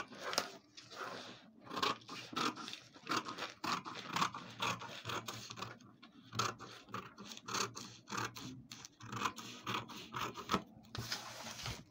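Scissors cutting through paper pattern pieces laid on folded brown paper: a run of short snips with the paper rustling.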